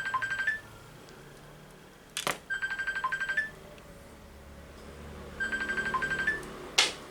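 RC helicopter transmitter beeping in quick trains of about ten high beeps, one train roughly every three seconds, each ending on a slightly higher note, while it binds to the helicopter. Sharp clicks fall between the trains.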